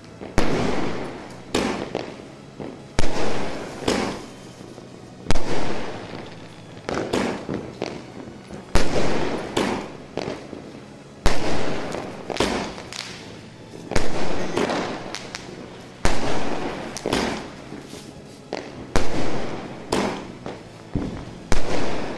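AONE Super 60 Shots multi-shot fireworks cake firing in sequence: a shot about every second, unevenly spaced, each a sharp bang trailing off over a second or so.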